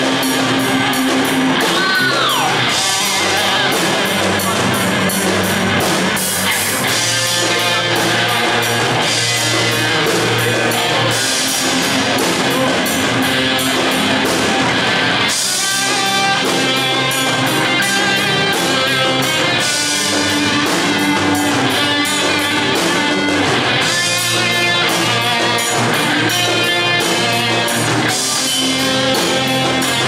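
Live instrumental rock band of electric guitar, bass guitar and drum kit playing a film-theme cover in a heavy-metal style.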